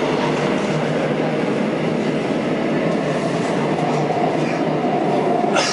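Seoul Line 3 subway train running, heard from inside the car by the gangway between cars: a steady rumble and rush of wheels on track. A faint steady whine joins in the second half, and there is a sharp clunk just before the end.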